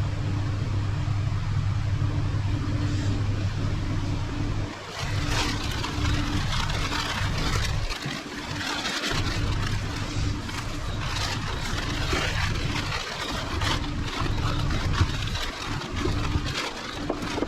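A steady low mechanical hum, joined about five seconds in by irregular hissing and clicking.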